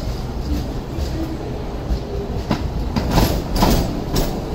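Hong Kong Light Rail car passing close by at low speed, its wheels knocking over the points and rail joints, with the knocks coming in a run during the second half over a steady rumble.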